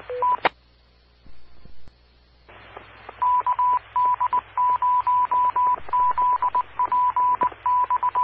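Amateur radio repeater tones over a hissy feed. A short low beep and two higher beeps end in a squelch click. Then, about three seconds in, the repeater sends its Morse code identification as a single steady tone keyed on and off in dots and dashes.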